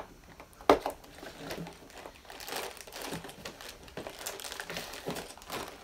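A cardboard Lego set box being pried and worked at by hand, with irregular crinkling and scraping. There is one sharp snap under a second in, the loudest sound.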